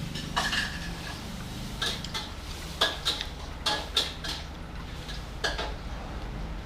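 Spoon and chopsticks clinking against a noodle-soup bowl while eating: about eight light, irregular knocks, over a steady low hum.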